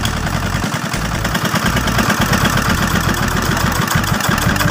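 Dongfeng S195 single-cylinder diesel engine running steadily after its rebuild, with a rapid, even knocking beat.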